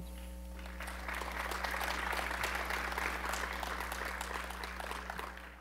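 Audience applauding at the end of a talk, the clapping building up about a second in and dying away near the end, over a steady low electrical hum.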